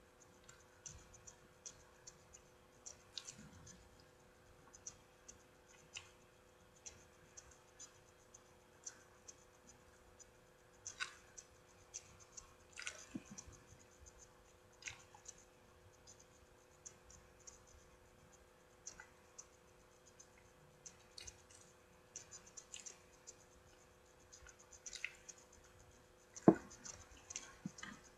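Faint eating sounds of a soft cinnamon roll being torn and chewed: scattered small mouth clicks and soft ticks and rustles from handling the food, over a steady faint hum. One sharper knock stands out near the end.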